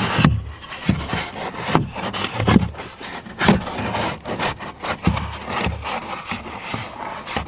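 Cardboard brace being pushed and wedged into a garbage can, scraping and rubbing against the can's sides with repeated knocks.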